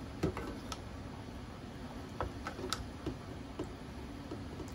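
Spatula stirring thick curry in a square aluminium mess tin: a few faint scrapes and taps against the pan over a low steady background noise.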